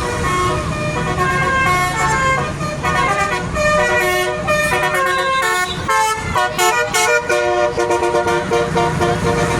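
Bus telolet horn, a multi-tone melody horn, playing a tune of short notes that step up and down in pitch, over the low rumble of the vehicle.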